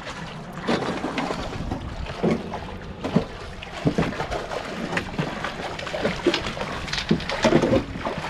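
Water splashing and sloshing as a hooked sheepshead thrashes at the surface beside a bridge pylon and is brought into a landing net, with irregular knocks and clatter from the small boat.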